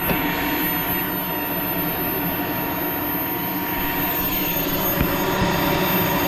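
Model jet turbine engine of a radio-controlled L-39 Albatross running steadily on the ground: a constant rushing blast with a thin steady whine over it.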